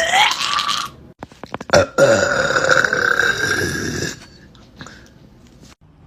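A young woman burping: a short burp rising in pitch and ending about a second in, a few sharp clicks, then one long, drawn-out burp of about two seconds.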